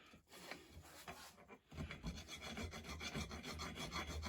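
Rapid, rhythmic scrubbing strokes of an abrasive on a metal vise part, cleaning off grime and old paint. A few faint scrapes come first, then the strokes run steadily from about two seconds in.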